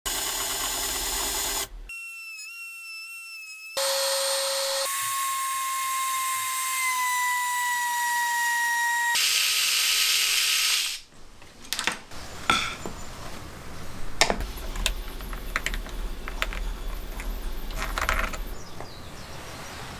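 Workshop tool sounds cut together: a cordless drill driving a screw, then several steady power-tool motor whines at different pitches, the longest sinking slightly. From about halfway, sharp clicks and light scraping of hand work, including a screwdriver turning small screws.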